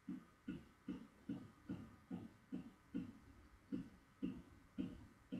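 A steady rhythm of short, dull knocks, a little over two a second.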